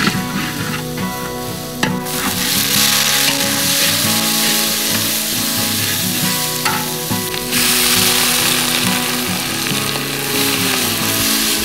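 Hot oil sizzling in a large wok with a spatula stirring, first over frying garlic; the sizzle turns suddenly louder about two seconds in as octopus goes in, and again about seven seconds in as a load of vegetables is added.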